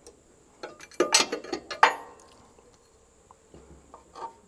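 Metal clinks and clanks from turning and tightening a fitting in a truck's air-suspension line: a quick cluster of sharp knocks about a second in, then a few faint clicks.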